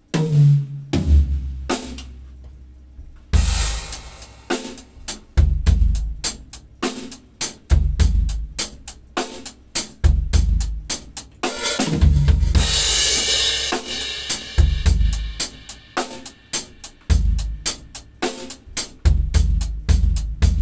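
An acoustic drum kit being played: a few single ringing drum strikes, then a steady groove of bass drum, snare and cymbals, with a heavier cymbal wash about twelve seconds in.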